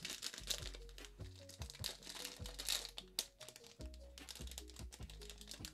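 A sealed plastic blind-box bag crinkling and rustling in irregular bursts as it is handled, over soft background music.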